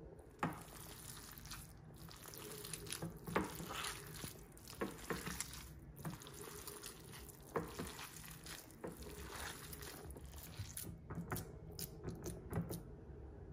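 A hand kneading raw ground beef with egg and herbs in a ceramic bowl: irregular short squishes of the wet mince, one sharper one about half a second in.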